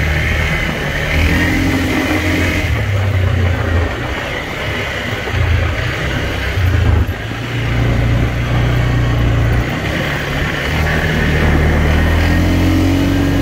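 Arctic Cat 425 four-wheeler's engine running under throttle as the ATV is ridden in four-wheel drive along a gravel road, the engine note easing off and picking up again several times.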